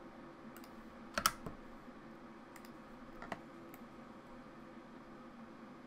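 A few scattered computer keyboard keystrokes and mouse clicks at a desk, the loudest a quick double click about a second in and another sharp click just after three seconds, over a steady faint hum.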